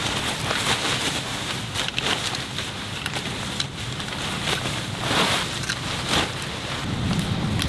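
Heavy rain pouring steadily, with many sharp individual drop impacts throughout.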